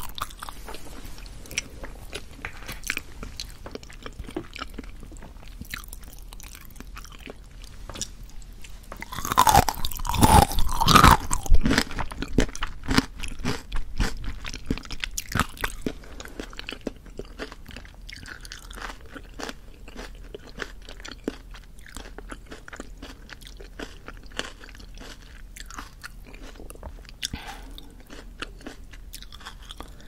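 Close-miked chewing of olbanggae-muk (Korean water-chestnut starch jelly): a steady run of small, wet, chewy mouth clicks. About nine seconds in, a louder, denser stretch of wet mouth sounds lasts a few seconds.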